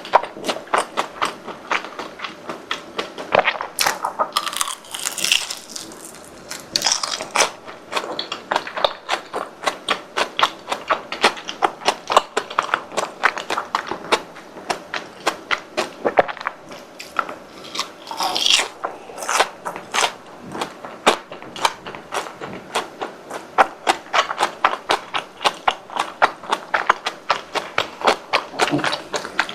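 Close-miked chewing of crispy fried croquettes and bread: a steady run of sharp crunches, several a second, as the crisp coating breaks between the teeth.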